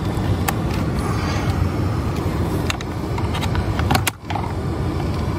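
The car's electric fan runs with a steady whir while the ignition is on, and sharp clicks come from plastic parts being unclipped and handled. The sound dips briefly about four seconds in.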